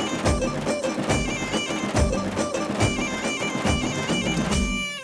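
Instrumental interlude of a Tamil film song: a high, stepping wind-instrument melody over a steady drum beat, fading out near the end.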